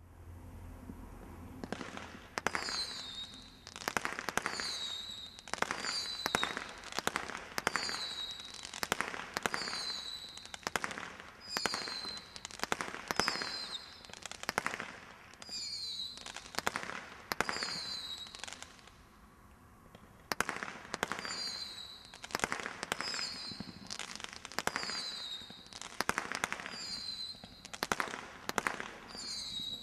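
Brothers Pyrotechnics Air-Strike, a 144-shot category 2 combination Roman candle firework cake, firing a long run of shots about once a second, many followed by a short whistle. The first shot comes about two seconds in, and there is a brief pause about two-thirds of the way through.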